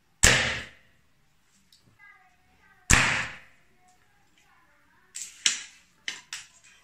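Mini slingshot rifle: two sharp snaps about two and a half seconds apart, each ringing briefly, then a quick run of lighter clicks near the end.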